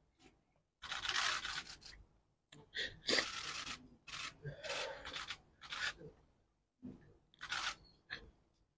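A crying man sniffling and wiping his face with a paper tissue close to the microphones: a string of rustling, crinkling noises, each up to about a second long, with short pauses between them.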